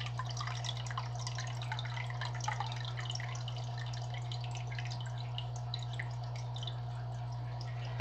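Green algae water trickling slowly into a cup from a culture tank, a fast irregular patter of small drips. A steady low hum runs underneath.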